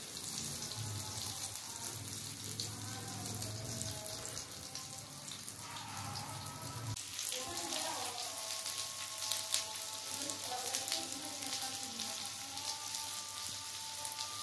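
Patties shallow-frying on a flat tawa griddle, the oil around them sizzling with a steady, dense crackle.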